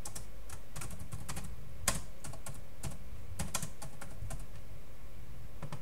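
Typing on a computer keyboard: short, irregular runs of keystrokes, with one louder keystroke about two seconds in.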